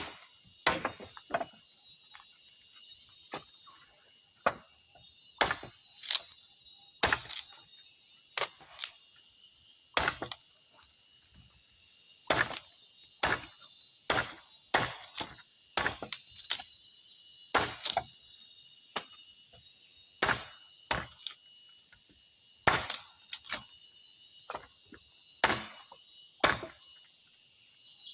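Repeated sharp blows of a tool on wood at an uneven pace, roughly one a second and sometimes in quick pairs, over a steady high drone of forest insects.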